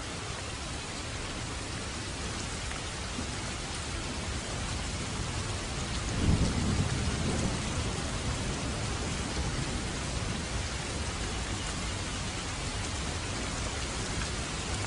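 Steady rain falling, with a roll of thunder rumbling up about six seconds in and fading away over a few seconds.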